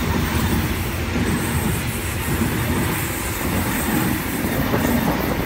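Sydney Trains Oscar (H-set) electric multiple unit passing close by, a steady loud noise of its wheels running on the rails.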